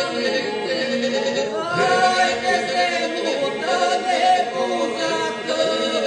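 Unaccompanied southern Albanian polyphonic folk singing by a small group of men and a woman. Voices hold a steady drone while lead voices rise and fall above it.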